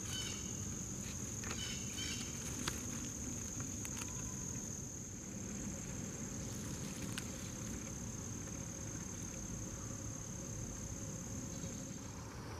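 A chorus of insects keeps up a steady high-pitched trill, and its pitch drops slightly near the end. A few faint clicks and a low rumble sit underneath.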